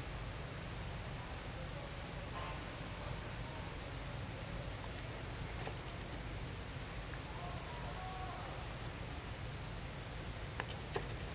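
Insects trilling in an even pulsing rhythm at a high pitch over a low outdoor rumble. There is a faint wavering call about eight seconds in and two sharp clicks near the end.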